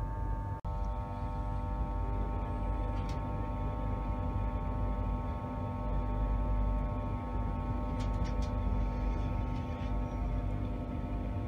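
Steady electrical hum inside a carriage of a Class 91-hauled train standing at a platform, made of several pitched tones over a low rumble, with a few faint clicks.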